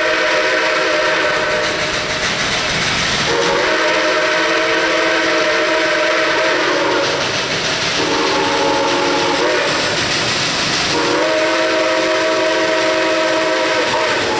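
Steam locomotive No. 28's chime whistle blowing over the steady noise of the engine working hard up a grade. A long blast ends about two seconds in, followed by another long blast, a short one and a final long one, the long-long-short-long pattern of a grade-crossing signal.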